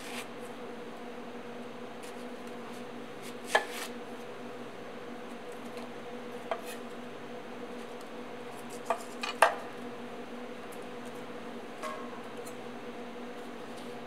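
Chef's knife slicing through a white onion and knocking on a wooden cutting board: several sharp, separate knocks at uneven intervals, with a quick run of three, the loudest, about nine seconds in. A steady low hum runs underneath.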